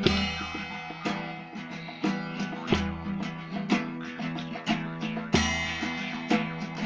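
Guitar music: plucked notes in a steady rhythm over a recurring low bass note.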